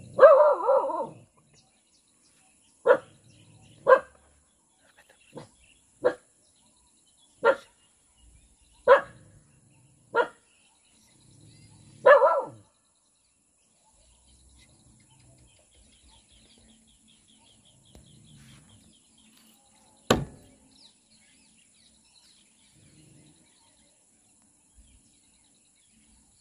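A dog barking, single barks one to two seconds apart, about nine over the first twelve seconds. Then one sharp click about twenty seconds in.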